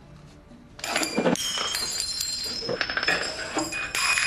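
Glasses and cups clattering and clinking, with ringing glass and many sharp strikes, starting about a second in, as crockery is swept off a café table.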